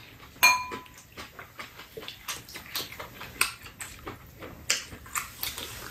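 Metal spoons clinking against bowls and a metal tray, with small wet chewing and eating sounds. One sharp ringing clink about half a second in is the loudest sound; after it come many small irregular clicks.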